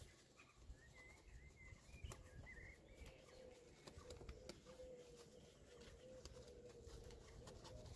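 Near silence: faint scrubbing and small clicks of a soapy wheel brush working around an alloy wheel's spokes, with a bird warbling faintly during the first few seconds and a faint steady hum.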